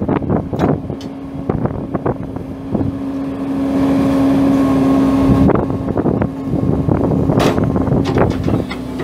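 2008 Takeuchi TB1140 mini excavator's diesel engine running with a steady hum that swells and gets louder from about three and a half to five and a half seconds in. Frequent short knocks sound throughout.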